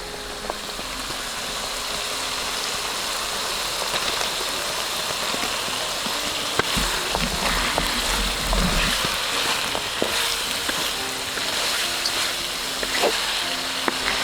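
Steady hissing and bubbling of a vegetable and dried-fish curry cooking in a pan, with a few small clicks and knocks.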